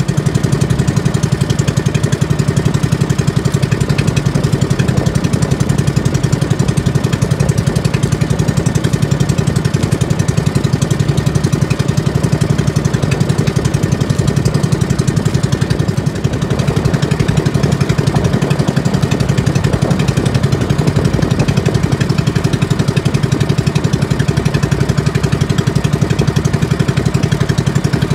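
Outrigger fishing boat's engine running steadily under way, a fast, even pulsing beat that does not change.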